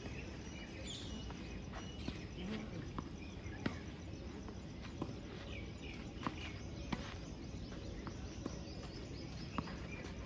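Tennis rally on a clay court: about ten sharp pops of racket strings hitting the ball and the ball bouncing, unevenly spaced. These sound over a steady outdoor background hiss.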